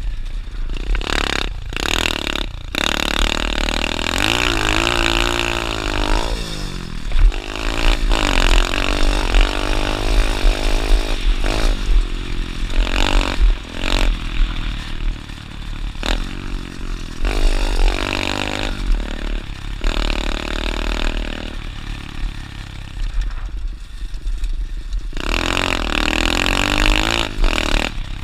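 Dirt bike engine being ridden hard, its pitch climbing and dropping again and again as the throttle is opened and closed, with a few sharp knocks along the way.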